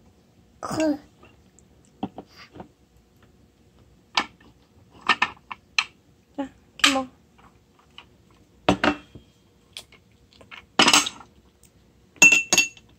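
A metal spoon tapping and scraping in a small glass jar as a toddler scoops out jelly: scattered clicks, with a ringing clink near the end. A short vocal sound from the child about a second in.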